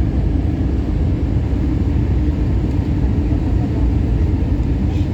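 Airbus A321 in flight: a steady low rumble of engines and airflow heard from inside the passenger cabin, with a constant hum running through it.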